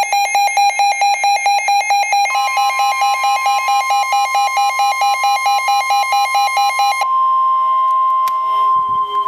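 Rapid, evenly pulsed electronic alert beeping, joined about two seconds in by the long steady NOAA Weather Radio warning alarm tone. The beeping stops about seven seconds in and the single steady tone carries on alone. Together they signal that a new weather warning is about to be read.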